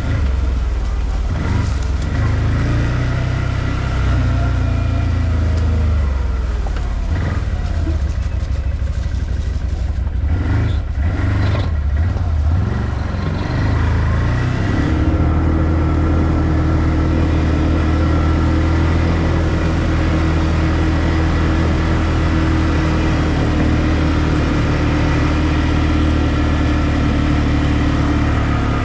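ODES 650 ATV engine running while the quad is ridden, its pitch rising and falling with the throttle for the first dozen seconds or so, then holding a steady note from about halfway through.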